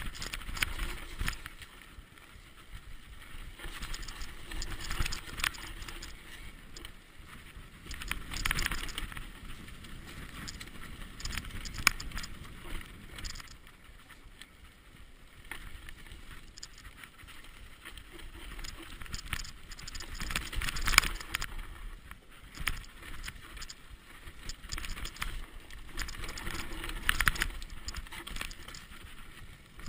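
Mountain bike riding fast down a rocky dirt trail: tyres rolling over dirt and stones while the bike rattles and knocks over the bumps, with several louder sharp clacks at irregular moments.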